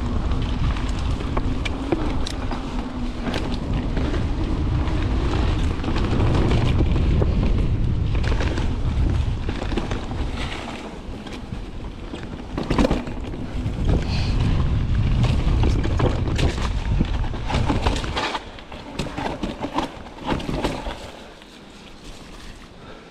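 Santa Cruz mountain bike descending a dirt singletrack: heavy wind buffeting on the camera microphone with tyre noise, and frequent knocks and rattles from the bike over roots and bumps, one especially loud about 13 seconds in. The wind rumble drops away near the end, leaving quieter tyre and rattle sounds.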